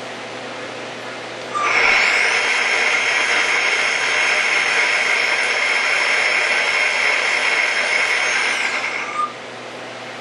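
Lathe live-tooling spindle driving an 8-flute replaceable-insert thread mill through stainless steel pipe, cutting an external thread: a steady high-pitched whine with a very high whine above it. It sets in about one and a half seconds in, gliding up, and stops near the end, gliding down.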